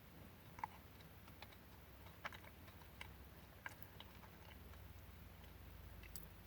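Near silence over a low hum, with a few faint, irregular clicks from a person chewing a bite of Swiss roll.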